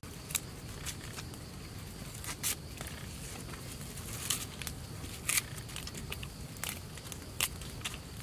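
Fresh herb leaves rustling and crackling as a hand presses and arranges them over raw fish in a frying pan: short, irregular rustles over a steady low background noise.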